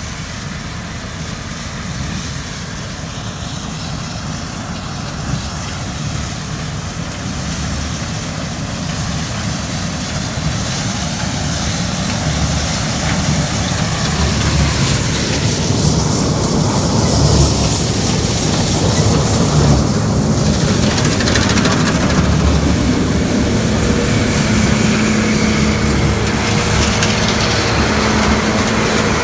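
Heavy farm machinery running steadily with a low engine rumble, slowly growing louder, with a steady hum coming in over the last few seconds.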